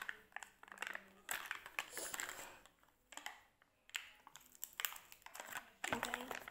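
Snack packaging handled in the hands: crinkling and rustling in short bursts, with small clicks and taps, pausing briefly around the middle.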